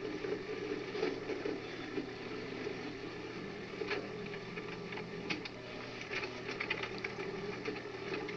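An engine running steadily, with scattered sharp metallic clicks and clanks over it.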